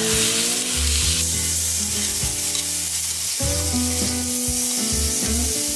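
Steaks sizzling hard in a hot cast iron skillet as they are flipped with metal tongs, a steady hiss and crackle of searing meat and fat.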